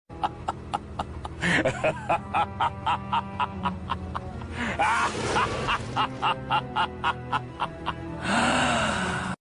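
Novelty ringtone music with a fast, steady beat of about five clicks a second over held tones, with short gliding voice-like sounds; it starts and cuts off abruptly.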